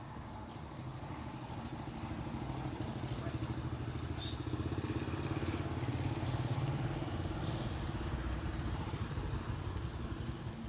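A motorcycle engine passing on the street, growing louder to a peak midway and then easing off.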